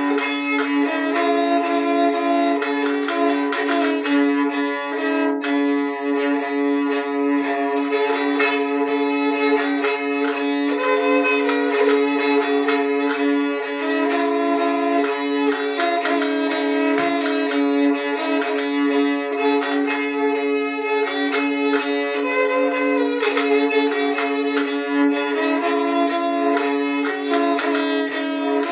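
Moraharpa with sympathetic resonance strings being bowed: a melody played on the keyed strings over one steady held drone note, with a rich, overtone-heavy ring.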